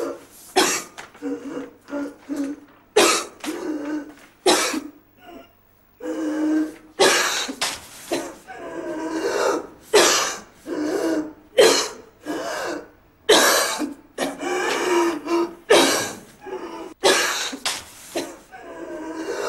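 A person coughing in a long, harsh fit: many short coughs in quick succession, with a brief pause about five seconds in.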